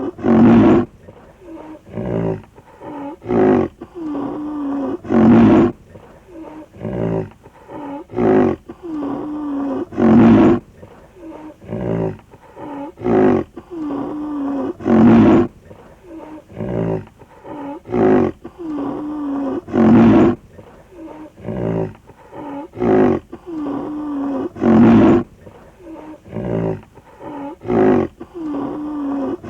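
Rhinoceros grunting: a run of short, loud, deep grunts with pauses between them, the same sequence repeating about every five seconds.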